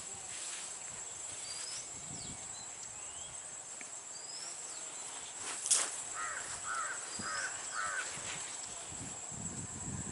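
Outdoor bird and insect sounds: a bird gives four harsh calls in quick succession, small birds chirp now and then, and a steady high-pitched insect whine runs underneath. A single sharp smack or crack comes a little past halfway, just before the calls, and is the loudest sound.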